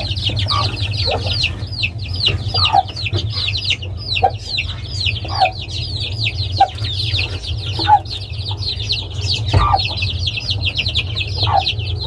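A brood of chicks peeping without a break, many high, falling cheeps overlapping several times a second. Now and then a lower cluck comes from the mother hen, a game (combatente) hen.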